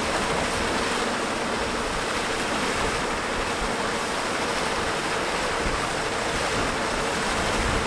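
Steady rushing noise of strong wind and waves at the seashore, with no distinct events.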